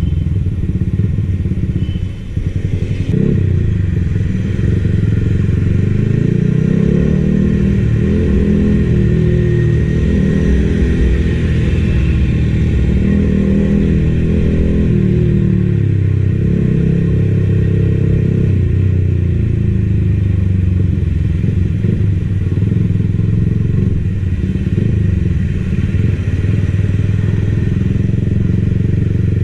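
Yamaha XSR155's single-cylinder engine running while the bike is ridden, its revs rising and falling several times in the first half and then running steadier, with a brief dip and a knock about two to three seconds in.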